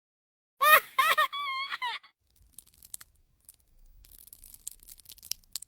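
A short, high-pitched sound effect in three quick notes, the last one held with a wavering pitch, followed by faint scattered clicks.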